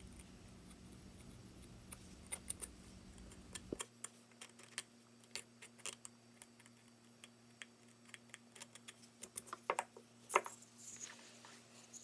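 Faint, irregular small clicks and ticks of a hobby knife's tip cutting and shaving paper-thin basswood tail feathers, with a few sharper taps near the end.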